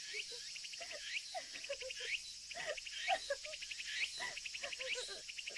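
Forest ambience: insects chirping in rapid pulsing runs over a steady high hiss, with birds calling in short chirps and notes.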